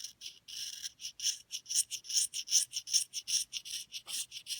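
Light, rapid scraping strokes on the cane of an English horn reed blank as the bark is scraped off: a few longer strokes, then quicker ones at about five a second, with a high, dry hiss.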